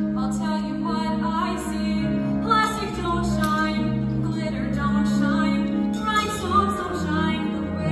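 Musical-theatre song performed live on stage: a female voice singing held, sustained notes over instrumental accompaniment.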